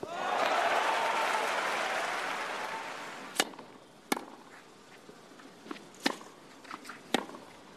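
Crowd applause and cheering that fades out over about three seconds, then the sharp cracks of rackets striking a tennis ball in a baseline rally, about four clear hits roughly a second apart, with fainter ball bounces between them.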